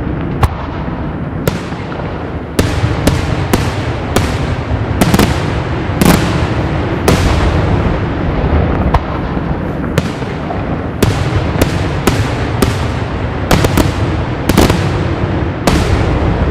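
Daytime fireworks bursting in the sky: an irregular string of sharp bangs, at times several close together, over a continuous low rumble of overlapping reports.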